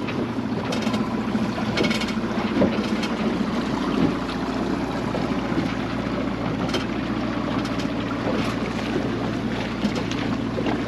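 Boat's outboard motor running steadily underway, with wind buffeting the microphone and water rushing past the hull.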